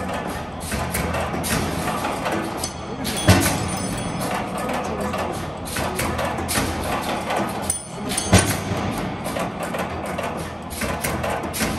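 Background music with busy percussion, with a strong hit roughly every five seconds.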